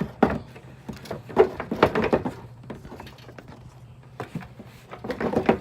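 Seed hopper being fitted back onto a John Deere 7300 planter row unit: a series of irregular knocks and scrapes as it is handled and seated, over a faint steady low hum.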